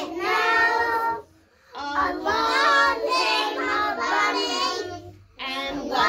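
A group of young children singing together in unison, in sung phrases with two short breaks, about a second in and near the end.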